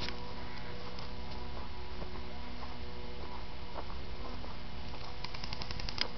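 An electric airsoft gun firing a quick burst of about ten sharp clicks in under a second near the end, over a steady low hum.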